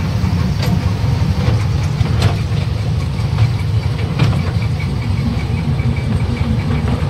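A small toy train running on its narrow track, heard from on board: a steady low rumble of its engine and wheels, with occasional clicks and knocks.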